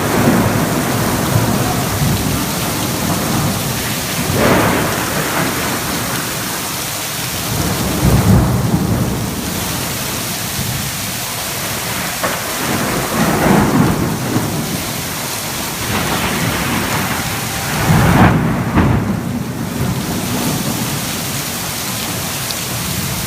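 Thunder rumbling in repeated swells, about every four to five seconds, over steady rain.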